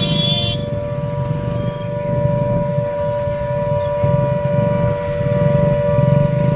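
Civil-defence air-raid siren of a blackout mock drill, holding a steady, unwavering note over a low background rumble, with a brief higher-pitched tone in the first half-second.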